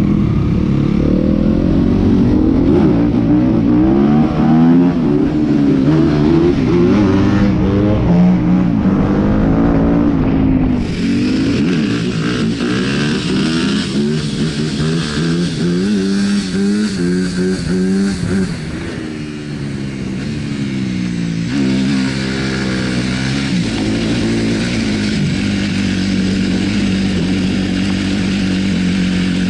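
Yamaha WR250F's single-cylinder four-stroke engine through an Akrapovic exhaust, revving up and falling back over and over as the bike is ridden. The sound changes abruptly about eleven seconds in.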